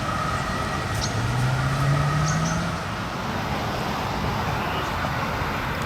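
An emergency vehicle's two-tone siren fades away over the first second or two, leaving steady traffic and engine noise. Between about one and three seconds in, an engine's pitch rises as it revs up.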